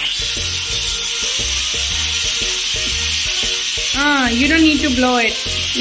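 Stovetop pressure cooker venting steam through its whistle with a loud, steady hiss. The hiss is the sign that the cooker has come up to pressure and is giving one of its whistles.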